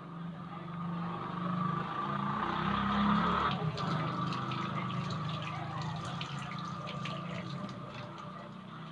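Pot of salmon-head sinigang boiling hard, the broth bubbling and popping with many small crackling ticks. A steady low hum runs underneath.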